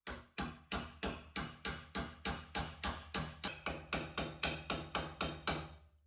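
A steady run of sharp knocks, about three a second, each ringing briefly, stopping near the end.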